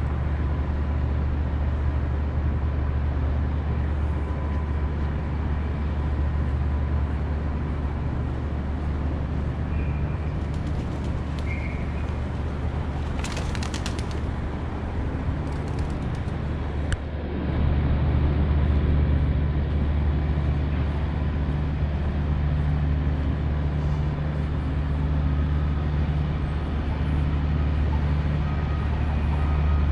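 Steady low hum of downtown city background noise, with two short bird chirps about ten seconds in. The hum gets a little louder after a click about seventeen seconds in.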